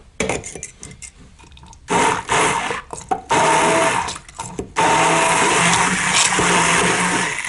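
Handheld immersion blender mixing a ceramic glaze slurry in a glass wide-mouth jar; the slurry is turning thick. A few light knocks of the blender shaft against the jar come first. About two seconds in the motor starts and runs in about three bursts, the last one the longest.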